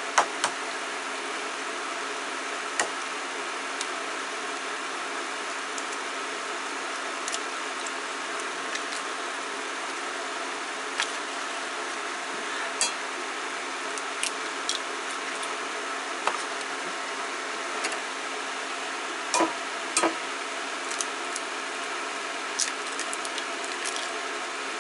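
Steady mechanical hum, with a dozen or so short sharp taps and clicks scattered through it as eggs are cracked into a glass measuring cup.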